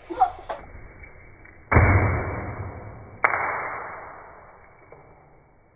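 Slowed-down audio from a slow-motion replay of a Nerf dart shot: two deep, sudden booms about a second and a half apart, each fading slowly, with the top of the sound cut off by the slowing.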